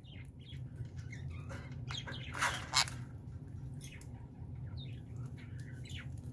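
Baby sun conure giving short chirps and squawks, with two louder calls between two and three seconds in.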